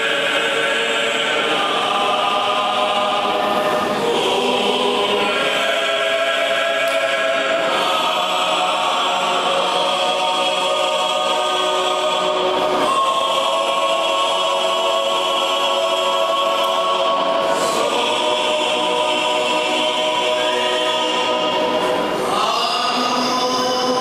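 Many voices singing together in slow, long-held notes: Orthodox church singing, with the pitch moving every few seconds.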